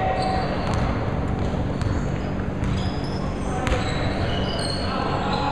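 Basketball game on a hardwood gym floor: the ball bouncing on the court and sneakers squeaking in short, high squeals, with players' voices calling out.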